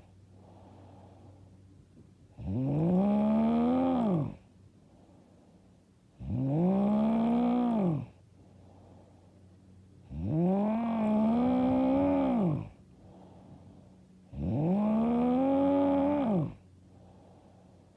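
A woman snoring loud and hard: four long snores, one about every four seconds. Each has a clear tone that rises and then falls in pitch, with much quieter pauses between.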